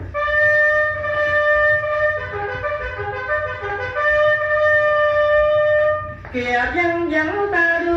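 Instrumental interlude from a Vietnamese tân cổ song on a vinyl record: one instrument holds a long steady note while another plays a moving melody around it. About six seconds in, a lower melody stepping from note to note takes over.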